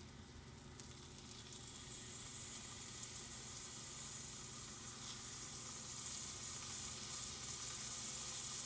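Seasoned coot breast strips sizzling in melted butter in a stainless steel frying pan, the sizzle growing louder as more pieces are laid in.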